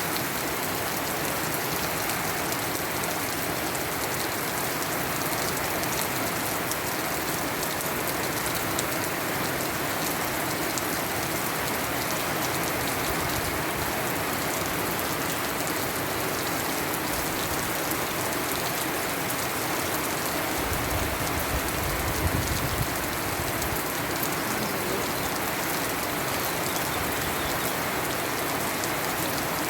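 Steady rain falling and pattering on surfaces, a dense even hiss full of fine drop impacts. A low rumble rises briefly about two-thirds of the way through.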